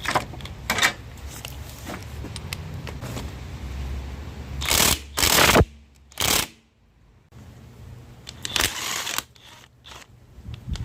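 Tools working to remove an engine's crankshaft pulley: several short, loud noisy bursts, the loudest about halfway through, over a low steady hum.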